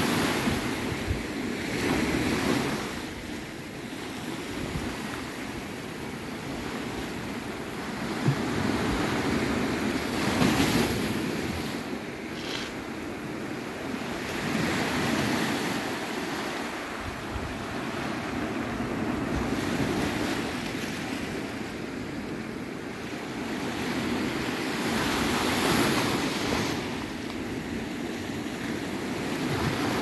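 Small Mediterranean Sea waves washing onto a sandy beach and around rocks, the surf swelling and ebbing every several seconds.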